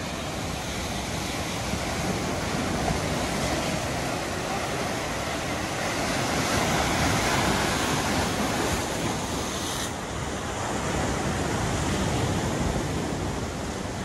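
Sea surf washing in over a rocky shore, with wind on the microphone. The noise swells and eases like breaking waves, and the hiss thins out about ten seconds in.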